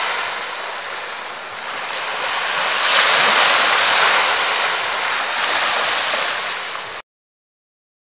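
Sea waves washing onto a beach, a steady hiss of surf that swells about two seconds in. It cuts off suddenly near the end.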